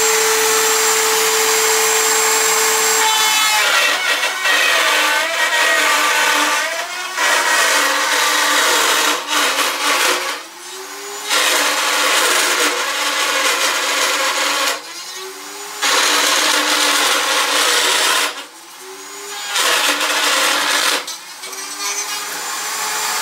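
Router in a Porter-Cable benchtop router table running at speed as an oak walking-stick blank is fed along the fence, the bit cutting loudly into the wood. The cutting noise eases off four times in short lulls while the router keeps running.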